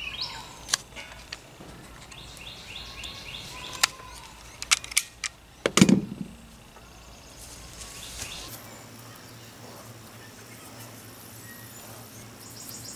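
Scattered sharp clicks and taps from a flagpole's rope halyard and its metal snap clip being handled and knotted, with one louder thump about six seconds in.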